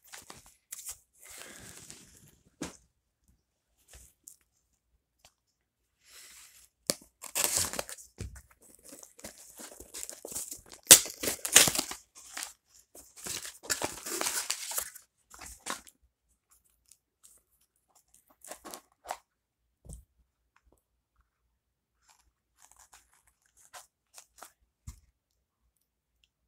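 Packaging being torn open and handled by hand: several bursts of tearing and crinkling through the middle, loudest about halfway, then a few faint clicks and rustles near the end.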